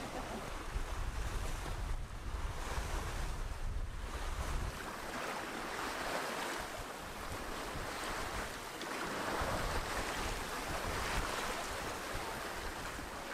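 Water rushing and splashing along a sailboat's hull as it sails through choppy waves, swelling and easing in surges. Wind buffets the microphone with a low rumble for the first few seconds.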